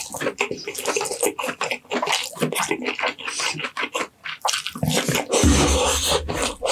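Close-miked wet chewing and lip-smacking of a person eating roast chicken with his hands: a dense run of sharp, moist mouth clicks, with a louder, fuller stretch about five seconds in.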